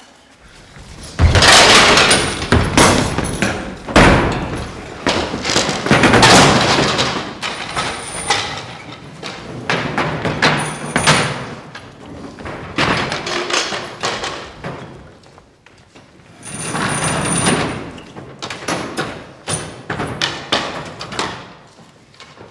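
Repeated bangs, thuds and clattering of school tables and metal-framed chairs being struck, shoved and thrown about. The crashes come thickest in the first few seconds and again a little after the middle.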